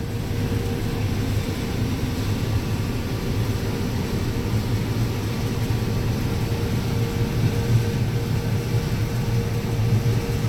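Farm machinery engine running steadily during corn harvest: a constant low drone with a steady hum above it.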